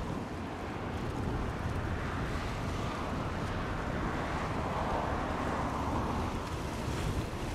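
Twin turboprop engines of a Bombardier CL-215T/415 water bomber droning as it passes low overhead, swelling about halfway through, with wind rumbling on the microphone.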